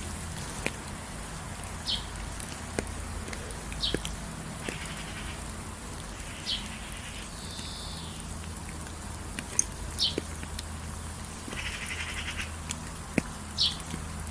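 Birds calling over a steady background of rain: short high whistled notes repeat every second or two, and two longer buzzy calls come about five and twelve seconds in. Scattered sharp ticks sound like drips.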